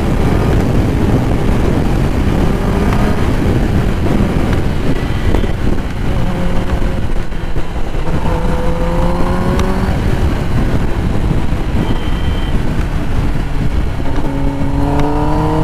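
Kawasaki ZX-10R inline-four engine running at highway speed under heavy wind rush on the microphone. The engine note eases as the bike slows, then climbs near the end as it accelerates again.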